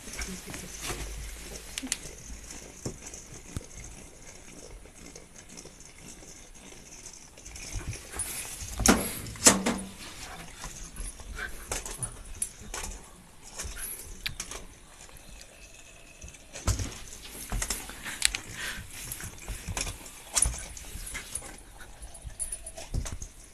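Shiba Inu chewing and tossing a toy: scattered sharp clicks, cracks and knocks, loudest about nine seconds in.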